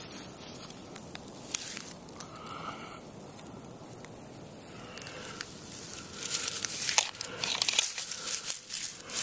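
Dry fallen leaves and grass rustling and crackling under close handling, with many small crunches and clicks; busier and louder from about six seconds in.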